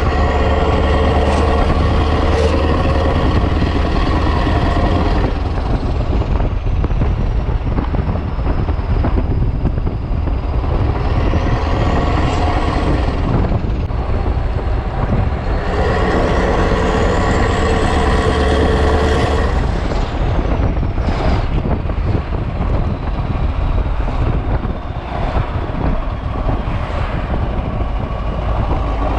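The 16.4-litre Mack E9 V8 diesel of a Renault Magnum truck runs through an open exhaust. It pulls hard twice for a few seconds at a time, and the turbo whistle rises in pitch as it pulls and slides back down between pulls.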